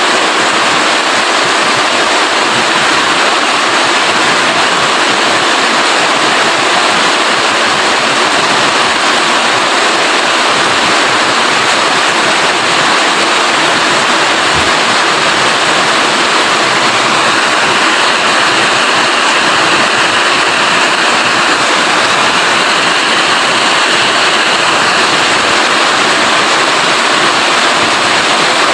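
Steady heavy rain, a dense, even hiss with no breaks. Partway through, a faint high steady tone sits under the rain for several seconds.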